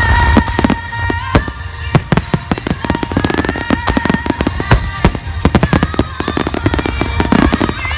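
Aerial fireworks going off in rapid, irregular succession, dense sharp cracks and pops with heavier bangs among them, over music with long held notes.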